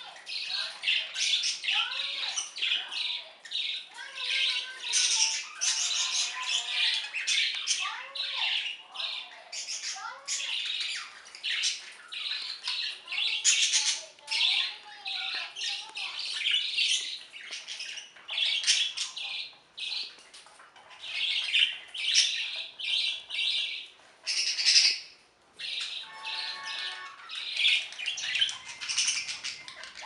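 Budgerigar calling: harsh, raspy calls repeated rapidly and almost without pause, mixed with a few softer rising-and-falling whistled notes.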